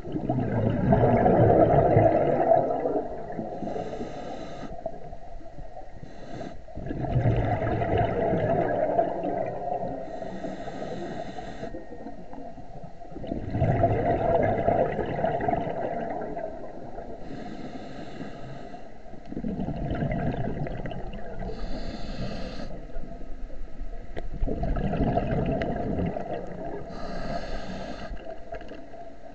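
Scuba diver breathing through a regulator underwater: each breath is a long rush of exhaled bubbles followed by a shorter hissing inhale, about every six seconds, five breaths in all.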